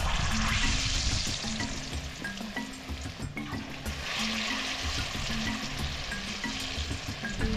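Ripe plantain slices deep-frying in hot oil in a steel wok, a steady hissing sizzle. It swells at the start as a slice is pushed into the oil with a wooden spatula, and again about four seconds in.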